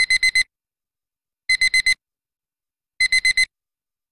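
Electronic alarm beeping: groups of four quick high beeps, one group every second and a half, three groups in all.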